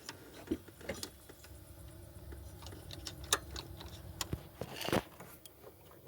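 Hand tools clicking and tapping irregularly on metal as a socket ratchet works a bolt on the timing belt tensioner, with a sharper knock about three seconds in and another near five seconds.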